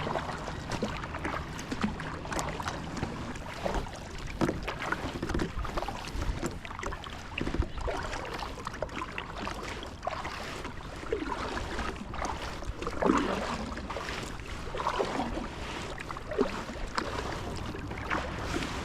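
Water splashing and lapping around a kayak on the water, with scattered small knocks and splashes.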